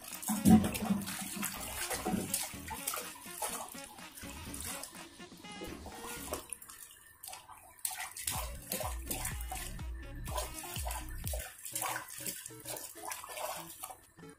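Water poured from a plastic scoop onto a wet cat in a plastic tub, loudest about half a second in, then scooped and splashed over its fur by hand, with splashing and trickling throughout as the fur is wetted.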